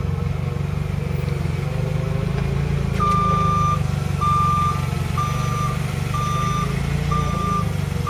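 Forklift engine running with a steady low hum. About three seconds in, its backup alarm starts beeping, one single-pitched beep roughly every second.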